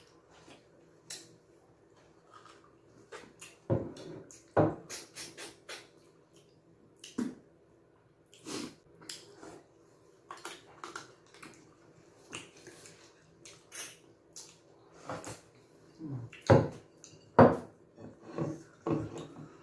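Close-miked eating of light soup and fufu by hand: irregular wet chewing, lip smacks and slurps of soup, with a few louder slurps or gulps about four seconds in and again near the end.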